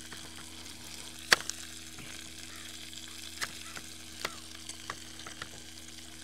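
Pork chops searing in olive oil in a Dutch oven over coals, a steady sizzle. Over it, knife strokes on a cutting board as a carrot is chopped: one sharp knock about a second in and a few lighter ones later.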